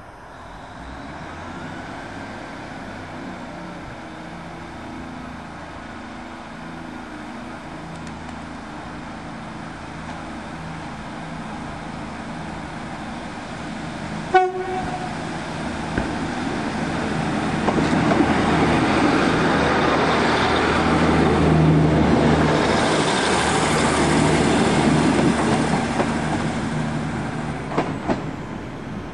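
A diesel train running, growing louder from just past halfway as it draws near and easing off near the end, with a brief sharp toot about halfway through.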